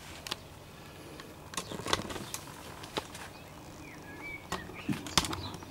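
A quiet pause between spoken phrases: low background tone with a few faint, scattered clicks and a short faint chirp about four seconds in.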